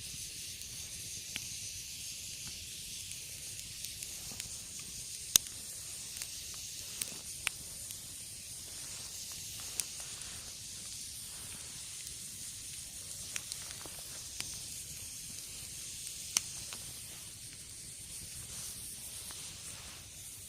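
Wood campfire crackling: a steady hiss with irregular sharp pops, the loudest about five seconds in.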